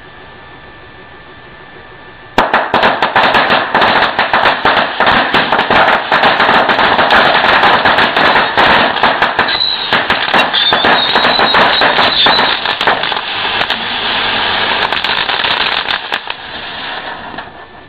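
A homemade firecracker ring (heksenkring) going off: a dense, rapid chain of firecracker bangs that starts about two seconds in, runs for about fifteen seconds and tapers off near the end.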